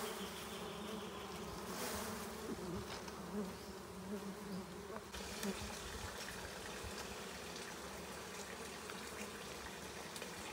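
A wild honeybee colony buzzing steadily on its open comb, a low continuous hum of many bees.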